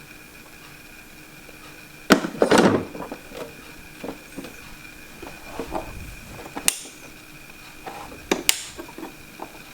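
Sharp knocks and short clatters of hard plastic parts being handled and set down on the humidifier, loudest about two seconds in and again near the end, over a faint steady high whine.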